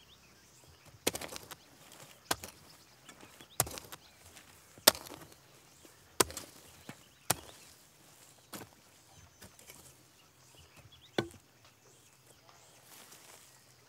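A hoe blade striking and scraping dry, stony field soil at a slow, even working pace: about eight sharp strikes, roughly one every second and a quarter, each with a short scrape after it and a longer pause near the end.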